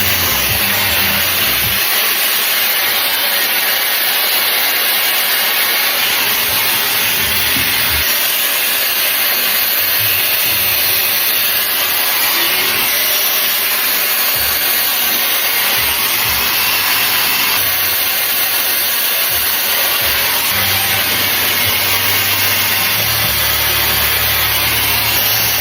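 Shark hair dryer-styler blowing air close by, a loud steady rushing hiss that holds at one level.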